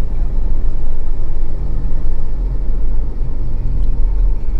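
A car in motion heard from inside the cabin: a steady, loud low rumble of road and engine noise.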